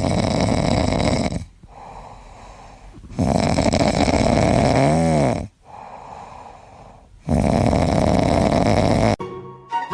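An animal snoring: three long, noisy snores of about two seconds each, with quieter breaths between, the second ending in a brief wavering pitch. Music begins just before the end.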